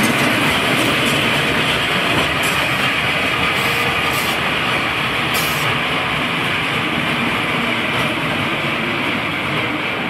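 Wacky Worm kiddie coaster train running along its steel track, a steady rolling rumble of wheels that gradually gets quieter. A few brief hisses come near the middle.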